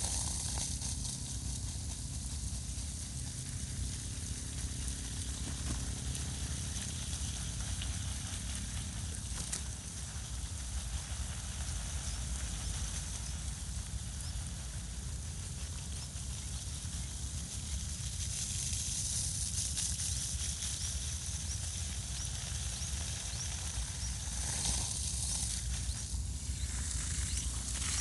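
Steady outdoor background noise: a low rumble under a high hiss, which grows brighter for a few seconds a little past the middle and again near the end.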